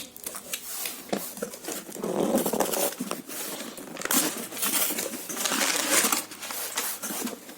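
Packaging being handled while a multitool box is unpacked: irregular rustling and crinkling with small clicks, loudest in two stretches in the middle.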